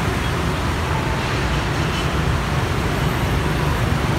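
Dense street traffic, mostly motor scooters and motorbikes with some cars, passing in a steady, continuous rumble.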